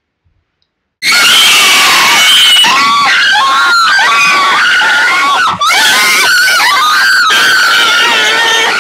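People screaming loudly and continuously, starting suddenly about a second in after near silence, with a brief break a little past halfway.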